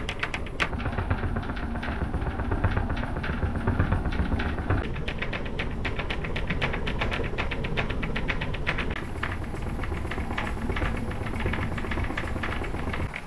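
Fast, even rattling, several raps a second, over a deep rumble: objects and the wall being shaken by a rotary infrasonic subwoofer driving the room near its resonance.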